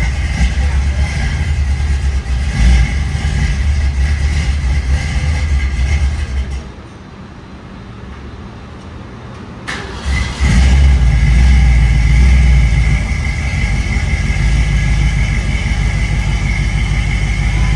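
Supercharged V8 of a Dodge Durango SRT Hellcat running loudly through its exhaust. It goes quiet for about three seconds partway through, then starts again with a click and a burst of revs, settling back to a steady run.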